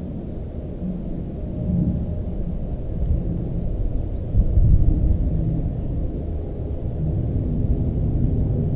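Wind buffeting an outdoor microphone: a rough low rumble that swells and dips, with its strongest gust a little before the middle.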